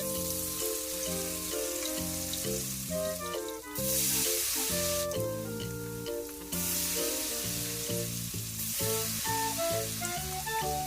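Food frying in hot oil, a steady sizzle that swells louder in stretches about 4 s and 6.5 s in, over background music.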